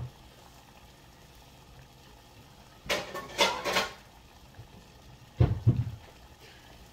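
Kitchen clatter of cookware and utensils being handled, with a short run of clinks about three seconds in and a dull low thump a couple of seconds later.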